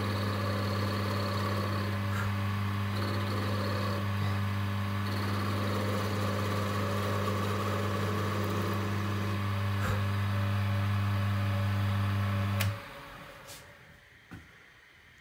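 Wood lathe's electric motor running with a steady hum while a chess piece is turned, then switched off about 13 seconds in, the hum cutting out quickly. A single faint click follows.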